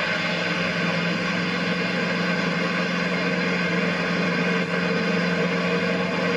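Steady engine drone and road noise of a moving vehicle, heard from inside it, with a constant low hum.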